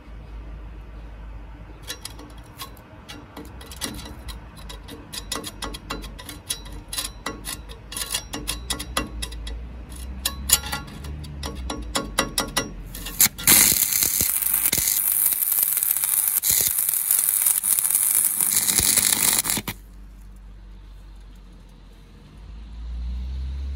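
Stick (SMAW) welding arc on steel: irregular crackling and popping for several seconds, then a steady, loud crackling hiss for about six seconds that cuts off suddenly when the arc is broken.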